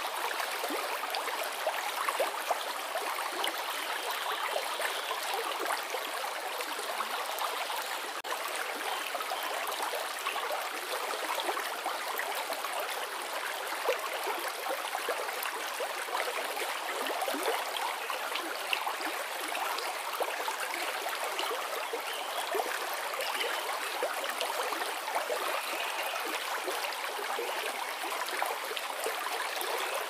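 Shallow stream flowing steadily over its bed, an even rush of water with fine trickling and small gurgles.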